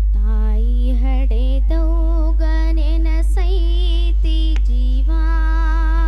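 A girl singing a Kannada folk song (janapada) solo into a microphone, holding long wavering notes over a steady low hum, with a few sharp percussive strokes now and then.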